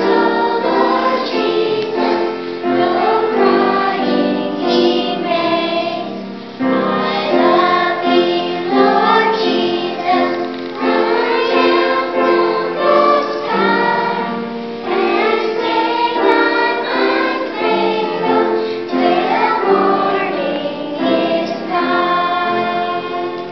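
A children's choir singing a melody together, with many young voices.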